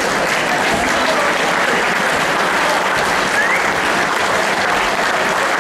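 Audience applauding steadily, with a short rising whistle about three and a half seconds in.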